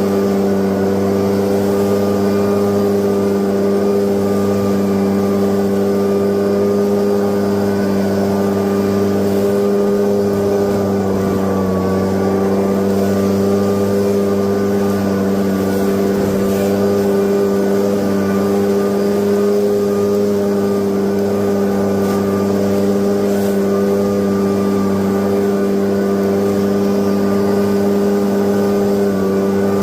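Leaf blower engine running steadily, holding one pitch throughout.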